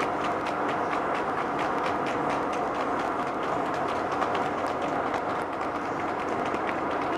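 Hooves of two harness racehorses striking tarmac at speed: a quick, even clatter of hoofbeats, several a second, over a steady hum of vehicle engines and tyres on the road.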